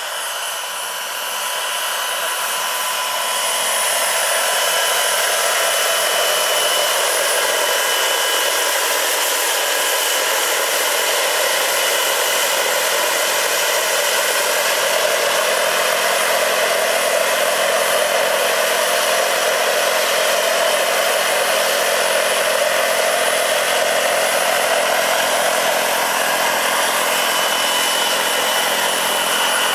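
Turbine engine and rotors of a large radio-controlled scale Eurocopter EC-120 B helicopter, running with a steady high whine over a broad rushing noise. It grows louder over the first few seconds as the model comes in close and hovers low.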